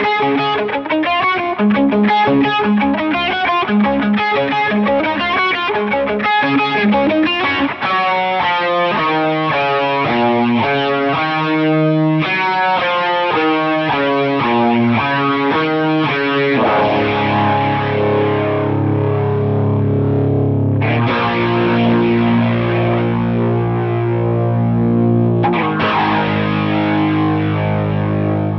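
Les Paul electric guitar with overdrive and delay playing a lead part: quick runs of single notes for about the first sixteen seconds, then lower held notes and chords, struck afresh twice near the end.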